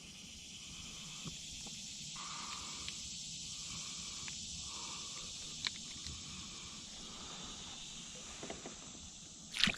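Swamp insects droning steadily in a high hiss, with a lower call pulsing roughly once a second through the first half. A small click in the middle and a sharp knock just before the end.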